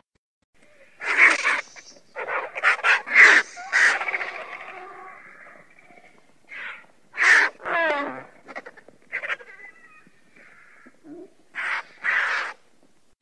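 Vultures calling: a series of short, hoarse calls, several close together in the first few seconds, then fewer and more spread out.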